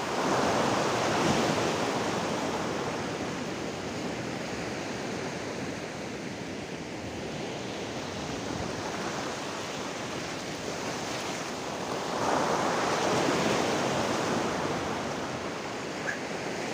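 Sea surf washing over shoreline rocks: a steady rush of water that swells louder about a second in and again after about twelve seconds.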